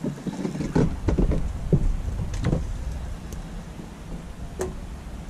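Irregular knocks and thumps over a steady low rumble as a spinning reel is cranked on a rod in a small open fishing boat, followed by a quieter stretch and one sharp click near the end.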